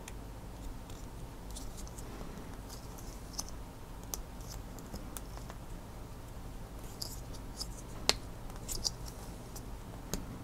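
Small clicks and scratches of a metal pin-extractor tool working inside a plastic pump power connector to release its pins, with one sharper click about eight seconds in.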